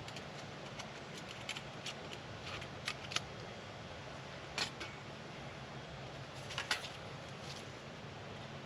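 Scattered light clicks and taps of camp gear being handled, a dozen or so at uneven intervals, the sharpest about three seconds in and near the end, over a steady faint hiss.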